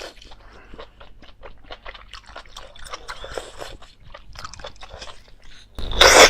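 Close-miked mukbang eating sounds: a person chewing and biting food with many small wet mouth clicks. A much louder burst of sound comes in near the end.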